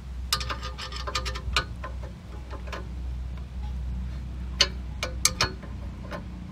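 Steel wrench clicking against a 3/4-inch bolt as the bolt is tightened on a hitch-mounted bike rack: a quick run of clicks in the first second and a half, then a few single clicks and taps later on, over a steady low rumble.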